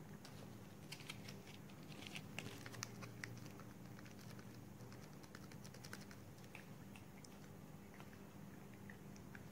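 A cat's faint clicking chewing and lip-smacking sounds, thickest in the first few seconds, over a steady low hum.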